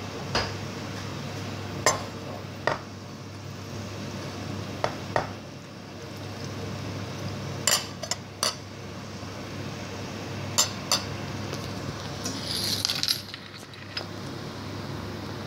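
Cookware clinking: a metal slotted spoon knocks and scrapes against a frying pan and a white ceramic dish while pasta in cream sauce is spooned out. There are scattered sharp clinks and a longer scrape a little after twelve seconds, over a steady low hum.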